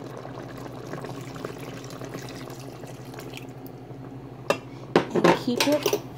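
Chicken, tomatoes and vegetables bubbling in a steaming pot with water just added. About four and a half seconds in come several sharp metal clanks against the pot, some of them ringing briefly.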